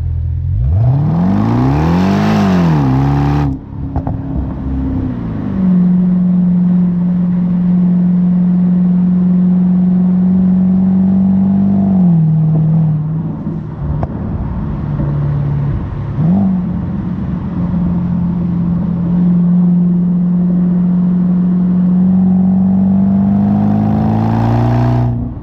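Jaguar XFR's supercharged 5.0-litre V8 through Spires stage 2 rear silencers. The engine revs up and back down, cutting off sharply about three seconds in. It then runs at a steady pitch for long stretches, with a dip and a brief blip partway through, and climbs again near the end.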